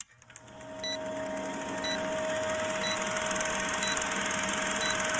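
Film-projector countdown sound effect: a steady mechanical whirring with a low hum, fading in from silence during the first second, with a short high tick about once a second.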